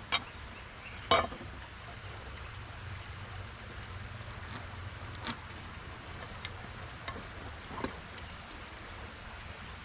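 A speed square and pencil marking a rafter cut on a rough-sawn board: light scratching and a few short knocks, about three, as the square is shifted on the wood, over a low steady hum.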